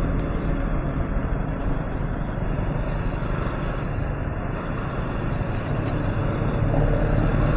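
Motorcycle being ridden at speed: a steady rush of wind and road noise with the engine's drone underneath.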